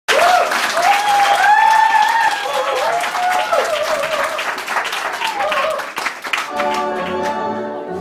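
Audience applauding with whooping cheers. About six and a half seconds in, the clapping dies away and tango music with bowed strings begins.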